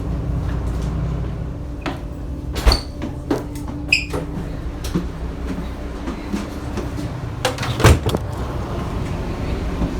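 A boat's engine runs with a steady low hum, with several sharp knocks and clatters on top. The loudest knock comes near eight seconds in.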